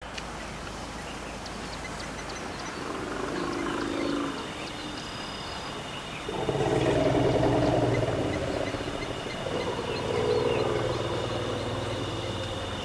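African elephants in a large herd giving low rumbling calls: a short one about three seconds in, then a louder, longer one about six seconds in and another about ten seconds in. A thin, steady high tone runs beneath them.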